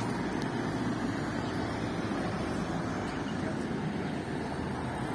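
Steady outdoor street noise: a constant hum of road traffic and city air, with no distinct single event standing out.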